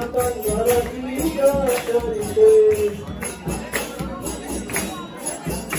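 Devotional kirtan: voices singing a slow melody with long held notes, over jingling hand percussion that keeps a steady beat.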